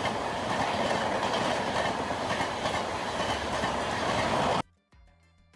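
Battery-powered Century Express toy train running on its track, a steady clatter that cuts off abruptly about four and a half seconds in.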